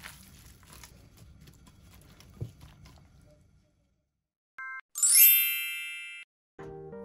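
Faint kitchen room noise fades into silence, then a short beep and a bright sparkling chime with a rising shimmer that rings out for about a second. Light background music starts near the end.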